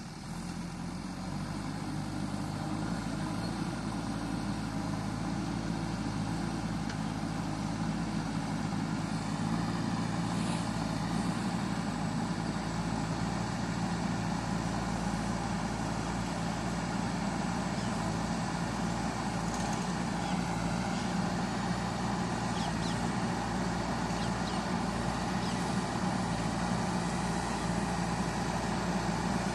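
JCB backhoe loader's diesel engine running steadily, getting louder over the first few seconds, with a few faint ticks now and then.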